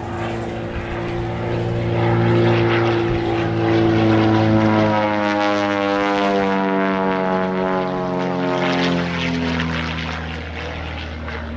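Small propeller aircraft's piston engine running as it flies its display. About halfway through, the engine's pitch slides steadily down over several seconds.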